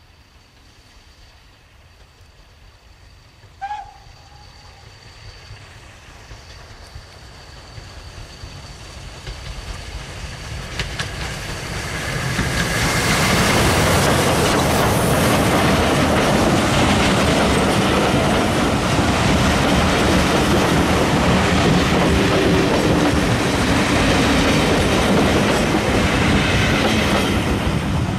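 Southern Railway Schools class No. 925 'Cheltenham' steam locomotive and its coaches approaching and passing close by. The sound grows steadily louder over about twelve seconds, then holds as a loud, steady rush of running gear and rolling wheels while the engine and carriages go past, easing off near the end.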